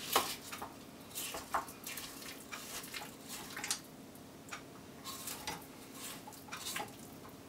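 A spatula scraping and tapping against the stainless steel bowl of a stand mixer: a series of short, irregular scrapes and clicks over a faint steady hum.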